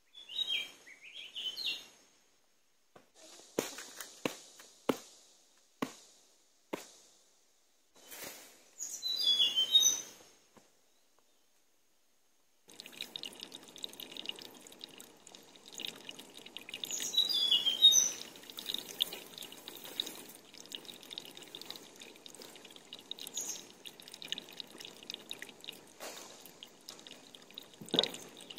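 Birds chirping, then a series of about five sharp knocks roughly a second apart, and more bird calls. After a short gap, a steady wash of dripping, running water, with birds chirping over it and a single knock near the end.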